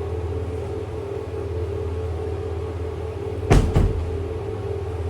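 Steady low mechanical hum with two sharp knocks in quick succession about three and a half seconds in.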